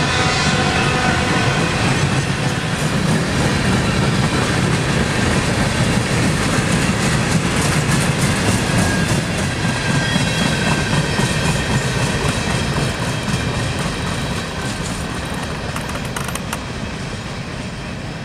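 Freight train cars rolling past close by, steel wheels clattering over the rail joints, with a thin wheel squeal near the start. The clatter grows quieter over the second half as the train moves away.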